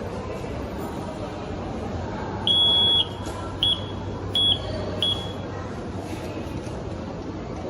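High-pitched Morse code buzzer keyed by hand: one long beep, then three short beeps, all at the same pitch, sending a Morse signal. A steady low hum runs underneath.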